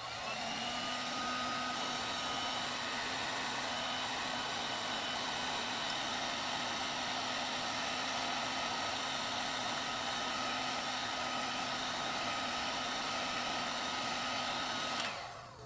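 Black & Decker heat gun, set on 7, blowing hot air: a steady rush of air with a faint whine. It stops near the end.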